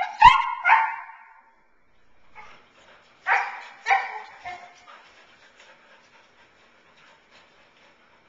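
Dog barking and yelping in two short bursts, a few calls in the first second and two or three louder barks about three to four seconds in, with a thump near the start and faint ticking after.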